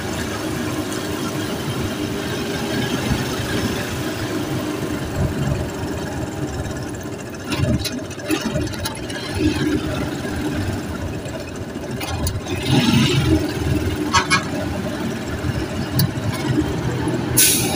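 Busy street-market ambience: a steady low rumble of vehicle engines with scattered short knocks and clicks, the sharpest one near the end.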